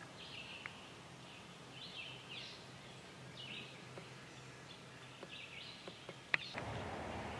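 Faint outdoor ambience with several short bird chirps scattered through it. There is a sharp click a little after six seconds, and a steadier background hiss picks up just after it.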